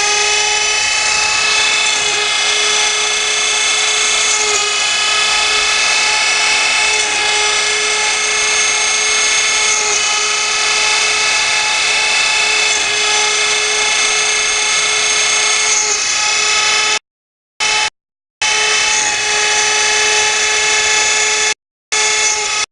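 CNC router spindle running at speed while cutting, a steady high-pitched whine over a hissing cutting noise. The sound drops out completely twice in the last few seconds.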